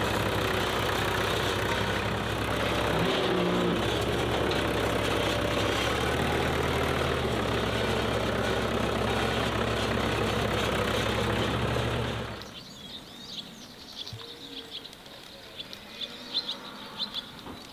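A vehicle engine running steadily at an even speed. About twelve seconds in it gives way suddenly to quiet, with birds chirping.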